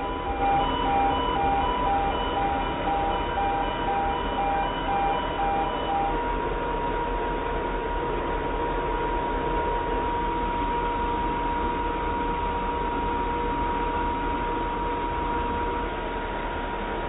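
A steady high-pitched machine whine over a rushing noise. A repeating electronic beep, about one and a half a second and sounding at several pitches at once, runs alongside it and stops about six seconds in.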